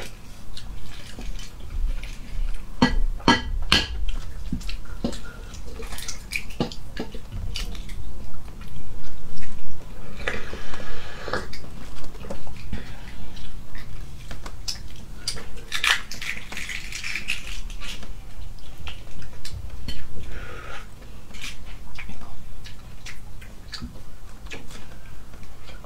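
Cooked eggshells cracking and crackling as eggs are peeled by hand close to the microphone, with shell pieces clicking on a ceramic plate. Sharp cracks come irregularly throughout, with a couple of longer crackly stretches.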